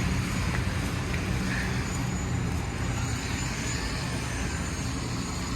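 A motor vehicle running steadily, a low engine hum under even road noise.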